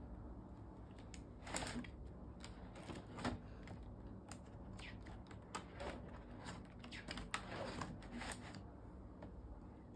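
Pages of a spiral-bound workbook being flipped by hand: an irregular run of short papery flicks and taps.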